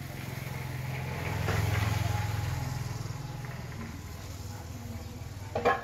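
A motor engine running steadily, swelling about a second and a half in and then fading, as a vehicle passing by would. A short sharp sound comes near the end.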